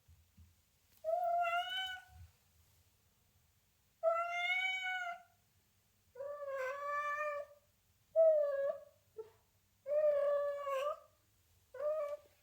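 Domestic cat meowing repeatedly: about six drawn-out meows, each up to a second long and one to two seconds apart, the last one shorter.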